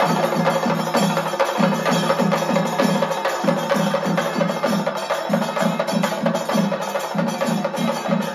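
Chande (chenda) drum ensemble, several cylindrical drums struck with sticks in a fast, even beat, with a steady ringing tone over the drumming.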